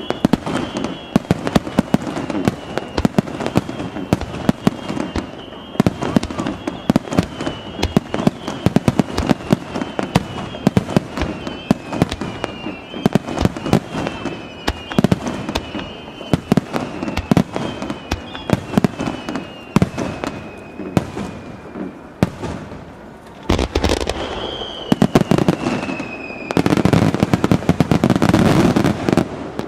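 Fireworks display: rapid overlapping bangs of bursting shells, with many short whistles sliding down in pitch, and a dense, continuous barrage of bangs near the end. The explosions echo off the surrounding mountains.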